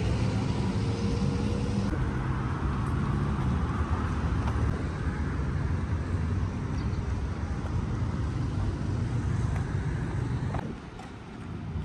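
A motor engine running with a steady low rumble, dropping away near the end.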